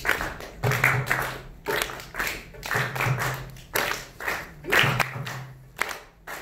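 An audience clapping a steady beat, about one clap a second, each clap joined by a low held musical note.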